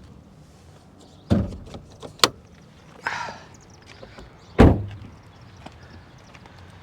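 A few separate clunks and a sharp click from hands working under a car's open hood, around the brake master cylinder reservoir, with a brief scraping rustle between them. The loudest clunk comes near the middle.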